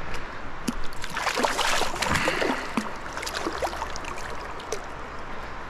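Water splashing and trickling as a landed fish is handled in the river water, busiest from about one to two and a half seconds in, then settling to a steady river rush.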